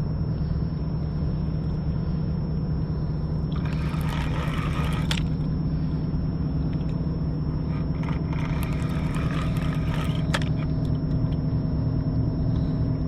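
Steady low drone of a large ship's engine passing on the river. Twice it is overlaid by brief scratchy spells with sharp clicks from the spinning reel and rod being handled.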